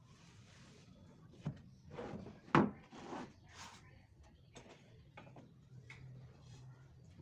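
Workshop handling noises: a few scattered knocks and rubs of wooden pieces being moved and set down, with one sharper knock about two and a half seconds in.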